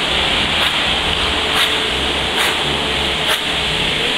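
Water splashing and churning as a Rottweiler paddles through a swimming pool, with sharper splashes about once a second.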